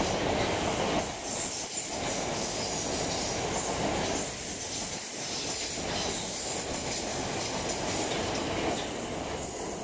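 South Western Railway electric multiple unit running past on the curved platform line, a steady rumble of wheels on rail that swells and eases as the carriages go by, with a faint high wheel squeal above it.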